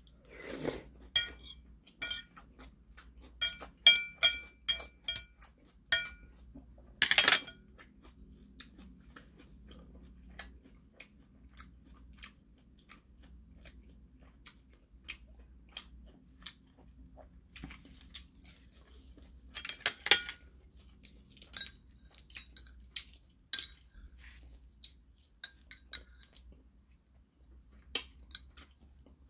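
A person eating close to the microphone: wet chewing and biting of tofu stew, with stainless-steel chopsticks clicking and clinking on a ceramic dish. A quick run of ringing clinks comes about four to six seconds in.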